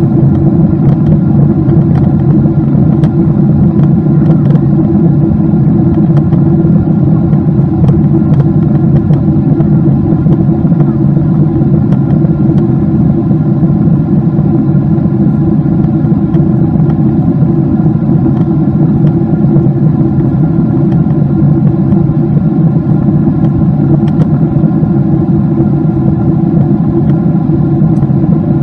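Cabin noise inside an ANA Boeing 777-200 in flight, heard from a window seat: the twin jet engines and airflow make a loud, steady drone with a low hum that does not change.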